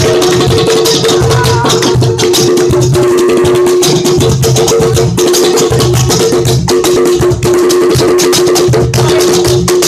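Music: a busy percussion groove of rattles and drums over two steady held low notes.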